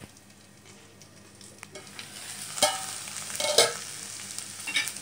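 Drumstick leaves and onions frying in a wok, a faint sizzle at first that grows louder about halfway through. Two ringing metallic clanks of steel utensils against the pan come a second apart, then a lighter click near the end.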